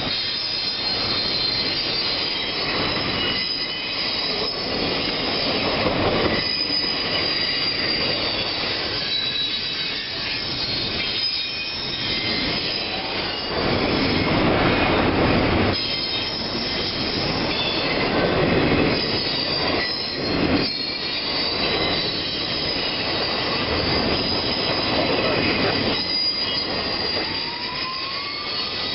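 Freight train of autorack and intermodal cars rolling past, steel wheels squealing against the rail with thin high-pitched squeal tones over a continuous rolling rumble; one squeal rises in pitch near the end.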